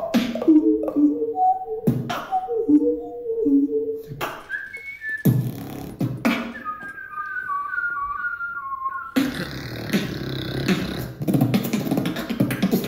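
Human beatboxing: a hummed bass melody of stepped low notes over sharp mouth clicks and snares, then a high whistled melody of short stepped notes. Over the last few seconds comes a dense, rough bass sound, which the listener takes for a snore bass.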